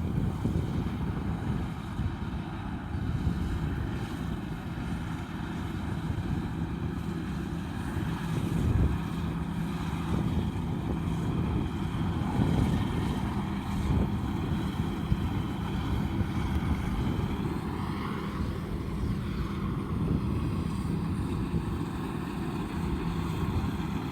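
Combine harvester engine and threshing machinery running steadily while harvesting rice, with a whine that rises and falls about eighteen seconds in.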